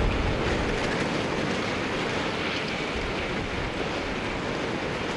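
Tsunami water rushing through streets and breaking over a harbour wall: a steady, heavy rush of water with a low rumble underneath.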